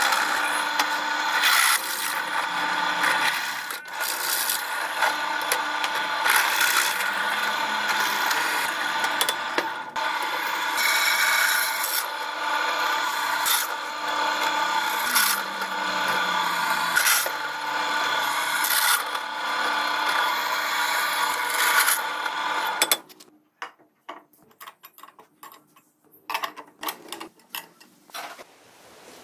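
Bench drill press drilling through a steel motorcycle chain sprocket, a loud steady whine with a high ringing tone from the bit cutting the metal. It stops about 23 seconds in, leaving a few quieter knocks and rubs.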